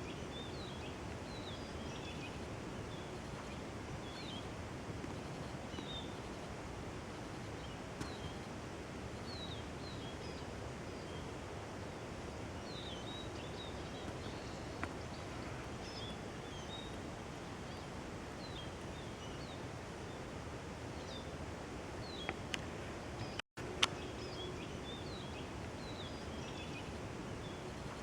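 Steady forest background hiss with short, high-pitched calls of small songbirds scattered throughout, and a few single sharp taps.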